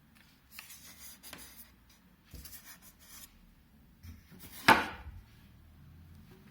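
Unboxing handling sounds: two stretches of rustling and scraping of packaging, then one sharp knock about three-quarters of the way through, as something hard is set down or struck.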